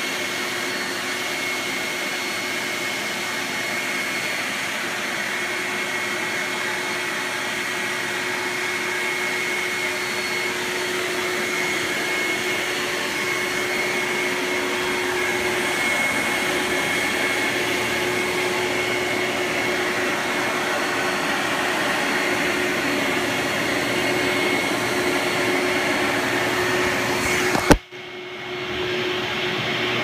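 Upright vacuum cleaner running steadily, its motor noise carrying a constant whine. Near the end a single sharp knock, as the filming phone is set down, after which the vacuum sounds duller.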